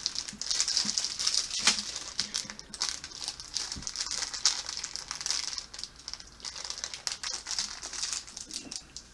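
Plastic snack bag crinkling and rustling in an irregular way as it is handled and opened, with a few sharper crackles.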